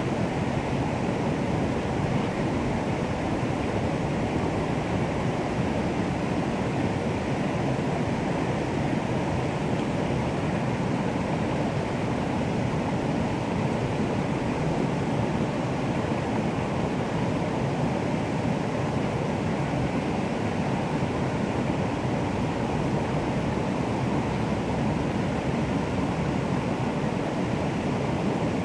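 Running water rushing steadily, an even rush with no rise and fall.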